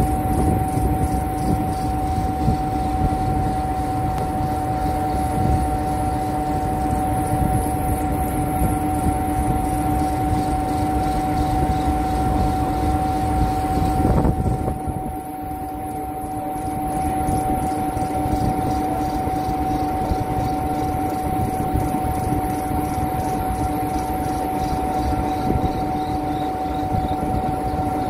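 Conveyor belt running over its troughing idlers and the tracker's tapered wing rollers: a steady mechanical rumble with a constant two-tone hum. It goes briefly quieter and thinner about halfway through, then returns.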